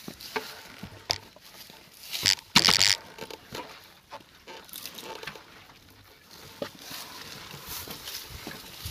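Footsteps crunching through dry grass, with scattered short crunches and one louder scraping noise about two seconds in that lasts under a second.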